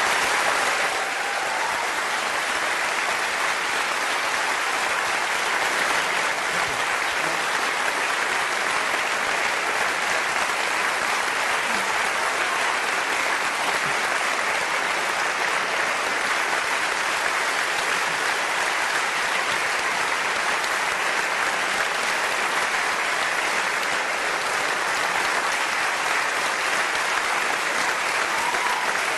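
Large auditorium audience applauding, a dense, steady and prolonged clapping.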